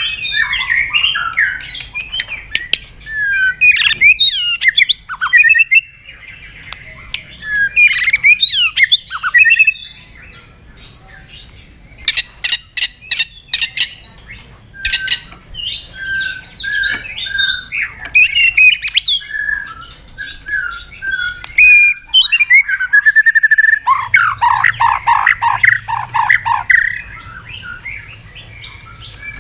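White-rumped shama (murai batu) singing: a loud, varied song of fast sweeping whistles and chattering phrases broken by short pauses, with a run of sharp clicks about halfway and harsh repeated notes near the end.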